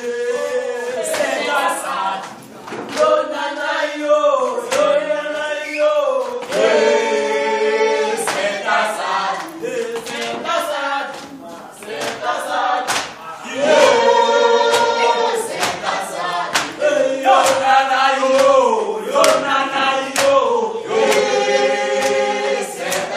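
A group of voices singing together unaccompanied, in sustained, repeated phrases: comrades singing a revolutionary song.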